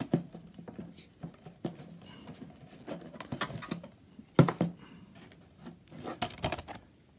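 Plastic Blu-ray case being handled and opened: scattered clicks and knocks of plastic, the loudest about four and a half seconds in, with a quick run of clicks a little later.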